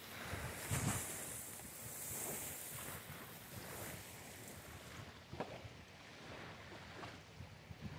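Wind gusting across the microphone over a steady rush of outdoor noise, strongest in the first few seconds, with a few faint pops later on.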